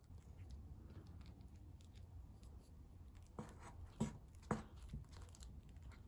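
Silicone spatula spreading and smoothing thick cream cheese filling in a springform pan: soft, irregular scraping and smearing, with three sharper taps past the middle.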